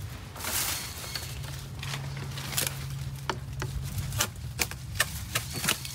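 Long-handled loppers snipping through bush branches: a string of sharp snaps at irregular intervals, with leaves and twigs rustling.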